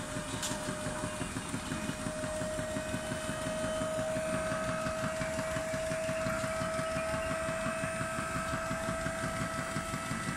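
Scissor lift's hydraulic pump running steadily while the platform raises, a single steady whine over a fast pulsing hum.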